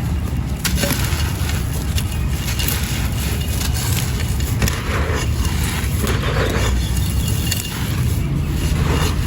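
Dry white claypot being crumbled and crushed by hand: a continuous run of crunchy, grainy crackles and small snaps, over a steady low rumble.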